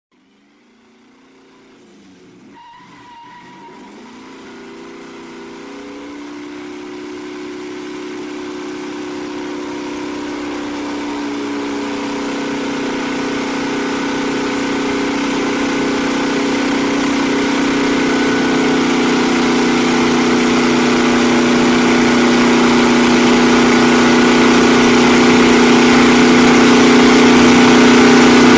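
A Dodge Charger muscle car doing a burnout: the engine is held at steady high revs while the spinning rear tyre hisses. It fades in slowly from very quiet to loud.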